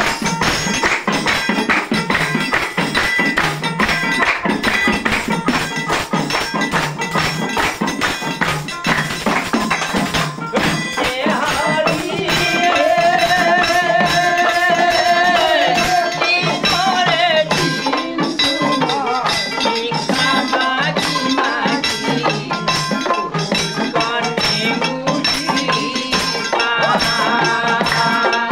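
Assamese devotional folk song sung by a group of men to a plucked long-necked lute, with hand percussion clicking and jingling in a fast, steady beat. About twelve seconds in the singers hold one long note for some five seconds before the verse moves on.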